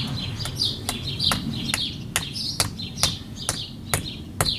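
Steady sharp clicks, a little over two a second, of a small blade cutting a protruding plastic wall plug flush with a rendered wall. A bird chirps over and over behind it.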